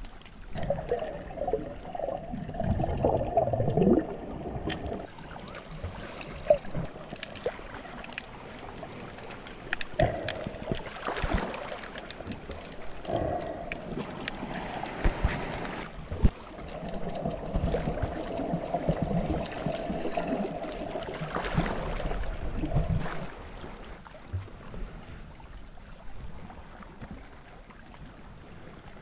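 Sea water sloshing and gurgling right at the microphone, with irregular splashes, loudest in the first few seconds and again past the middle.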